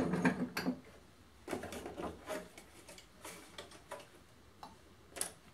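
Short, irregular rubbing and light knocks: a paper towel wiping a laminate countertop and a small vacuum-base vise being shifted on it.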